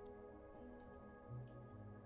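Soft ambient background music with long held notes.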